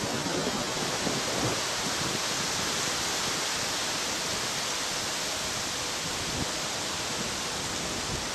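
Steady hiss with an uneven low rumble underneath.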